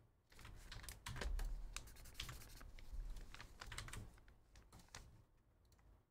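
Faint, irregular clicking and tapping of a computer keyboard and mouse, a scattered run of short clicks.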